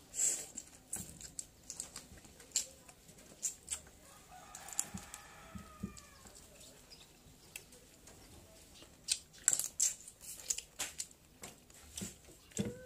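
Close-miked mouth sounds of eating rice and fried chicken by hand: chewing, lip smacks and a scatter of sharp wet clicks. About five seconds in there is a brief call whose pitch falls.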